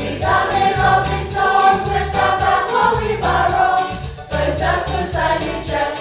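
A group of voices singing a church song to live band accompaniment, with a steady beat from light percussion, and a short break between phrases a little after the middle.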